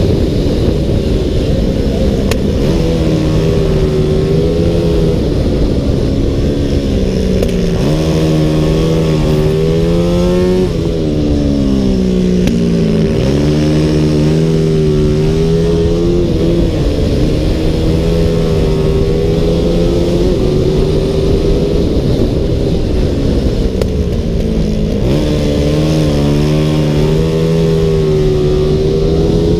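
CG-class racing motorcycle's single-cylinder four-stroke engine run hard at race speed, holding high revs on the straights. Its pitch drops several times, as when slowing for a corner, then climbs sharply again as the rider accelerates through the gears.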